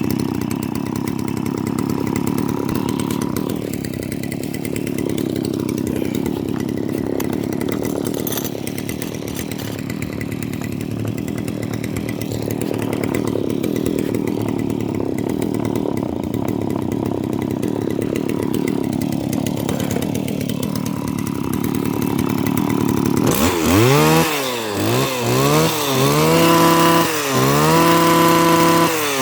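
Stihl FS85 brush cutter's 26cc two-stroke engine running steadily at idle. Near the end it is revved up and back down again and again, about once every second or two.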